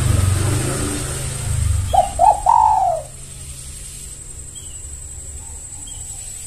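Spotted dove (tekukur) cooing: one short phrase about two seconds in, two quick notes and then a longer note that falls in pitch, over a steady low rumble.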